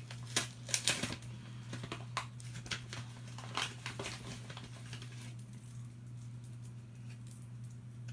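Candy-bar wrapper crinkling and rustling as it is handled, with a scatter of small clicks; it dies down about five seconds in. A steady low hum runs underneath.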